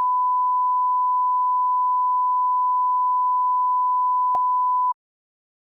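Steady single-pitch test tone, the reference tone that goes with TV colour bars at a station's sign-off, cutting off suddenly about five seconds in with a faint click just before.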